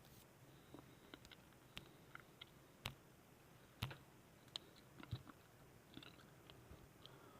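Faint, irregular clicks of a computer mouse and keyboard in a quiet room, a dozen or so, the loudest about three to five seconds in.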